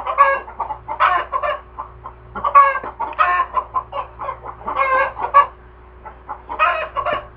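Chickens cackling loudly, a run of repeated squawking calls about once a second, with a short lull about six seconds in.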